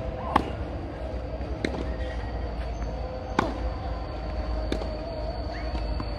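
A tennis baseline rally on clay, heard as sharp pops of racket strings striking the ball, four in all. The two louder hits from the near player alternate with fainter hits from the far end, about one and a half seconds apart, over a steady faint hum.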